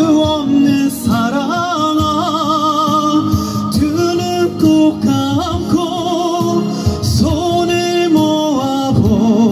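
Trot song played over an outdoor PA: a melody line with heavy vibrato over a steady backing track, in a break between the sung lines.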